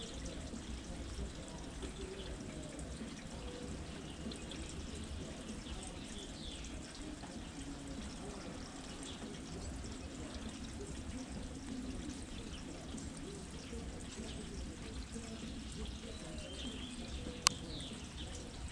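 Steady rain with dripping and trickling water, with a few faint short bird chirps. A single sharp click sounds near the end.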